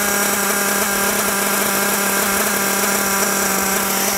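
Nitro RC buggy's small glow engine idling steadily with an even, high buzzing note. The engine is running hot and its fuel mixture is being richened.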